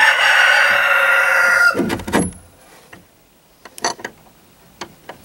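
A rooster crowing: one long crow that ends about two seconds in, followed by a couple of sharp knocks near the end.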